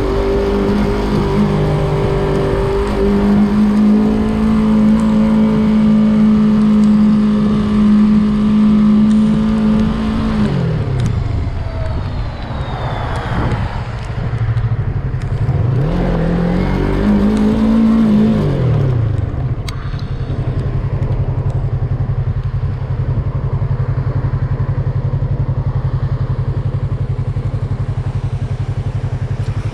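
Yamaha MT-03 motorcycle engine running at a steady speed, then dropping in pitch as it slows about ten seconds in. It revs up and back down briefly a few seconds later, then settles to a steady idle.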